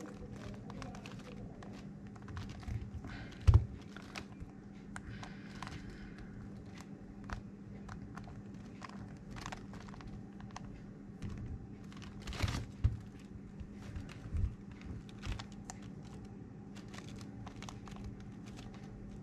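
Irregular plastic clicking and clatter of a megaminx puzzle's faces being turned and the puzzle handled, with a few louder knocks about three and a half seconds in and again around twelve seconds.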